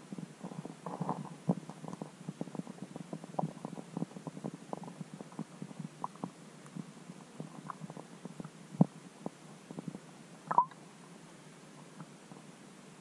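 Muffled, irregular low clicks and pops picked up through a submerged camera housing under the ice. They are dense at first and thin out after about eight seconds, with one sharper knock about ten and a half seconds in.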